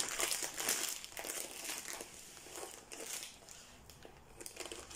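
Clear plastic wrapping around a rolled canvas crinkling as it is handled and opened by hand. It is strongest in the first second or so, then gives way to lighter rustles and small ticks.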